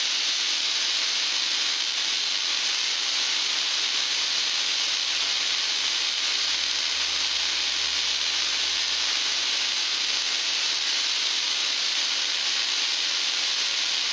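Home-built spark-gap Tesla coil, fed by a 9 kV 30 mA transformer, running continuously: a steady hiss from its static spark gap firing and sparks streaming off the aluminium-duct toroid top load.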